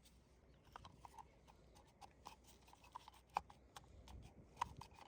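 Faint light clicks and taps of small lawnmower carburetor parts being handled, with two sharper clicks past the middle.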